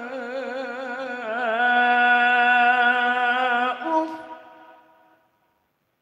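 A man reciting the Qur'an in melodic tilawah style, amplified through a microphone, holding a long ornamented note at the end of the phrase 'fa lā taqul lahumā'. The note breaks off about four seconds in, and its echo fades to silence about a second later.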